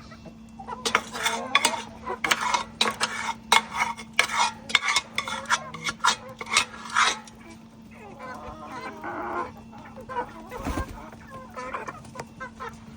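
Chickens clucking, with a quick run of sharp clicks and taps through the first half that then dies away.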